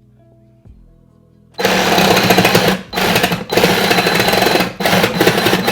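Reciprocating saw cutting into the back panel of a drawer unit in several bursts, starting about one and a half seconds in, with short pauses between bursts.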